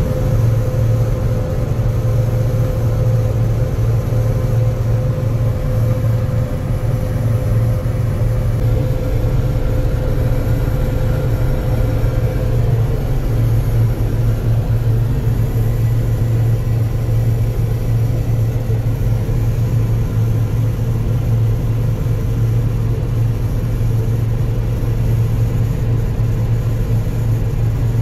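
Heavy farm machinery running steadily during peanut harvesting: a tractor engine and peanut combine at work, an even low drone with a faint steady hum above it.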